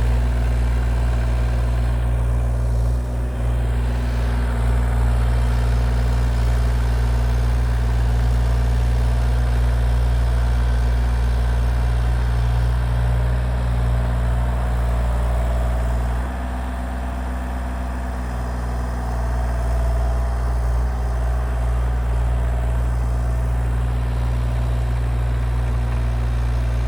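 Excavator's diesel engine running steadily as it plows snow, with a slight drop in level for a few seconds past the middle.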